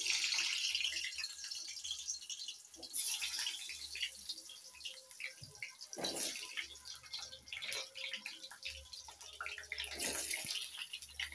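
Whole peeled potatoes going into hot oil in a kadai, sizzling. A fresh burst of sizzling comes each time more potatoes drop in, four times, and each burst settles back into a lighter crackle.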